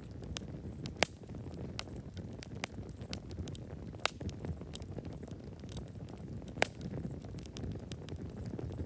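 Wood campfire crackling: a steady low rush of flames under many small, irregular snaps. Three sharper pops stand out, about one, four and six and a half seconds in.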